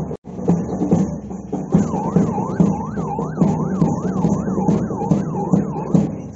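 Police car siren in a fast yelp, its pitch rising and falling about two and a half times a second. It starts about two seconds in and stops near the end, over a steady drumbeat.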